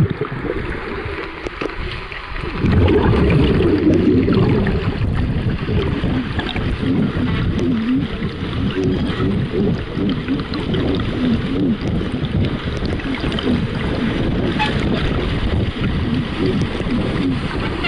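Churning, bubbling water heard through a submerged camera's microphone as swimmers kick and stroke past overhead. The churning gets louder about two and a half seconds in and stays loud.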